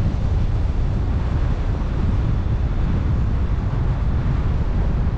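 Steady wind rumble buffeting a hood-mounted GoPro Hero 9's microphone as a 2020 Ford Ranger drives along a gravel road, with the tyres' road noise on gravel underneath.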